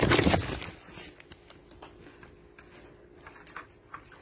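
A loud rustling rush in the first half second, then faint scattered clicks and crunches as a goat feeds with its head in a plastic bucket.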